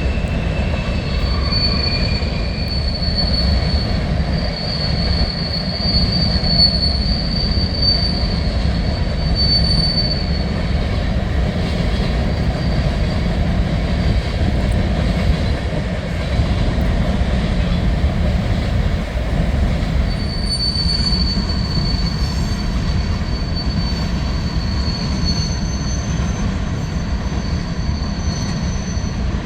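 Freight train rolling past with a heavy, steady rumble of its cars. Its steel wheels squeal high on the rails for the first ten seconds or so, go quiet, then squeal again from about two-thirds of the way through.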